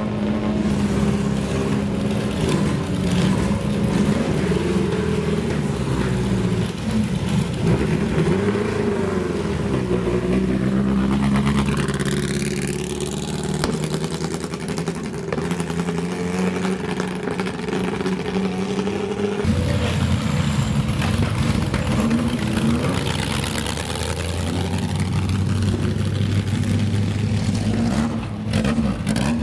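Racing car engines at full throttle, the engine note rising and dropping as the car accelerates and changes gear. About two-thirds of the way through it switches abruptly to a different engine note.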